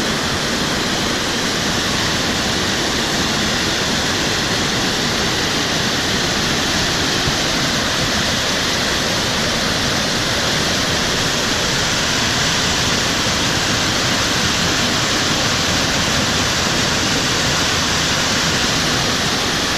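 Waterfall rushing: a loud, steady, even rush of falling water with no breaks.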